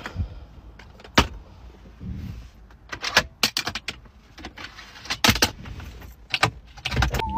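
Plastic latches and lids of a car's interior storage compartments clicking and snapping open and shut as a hand works them, a series of sharp clicks spread through the few seconds.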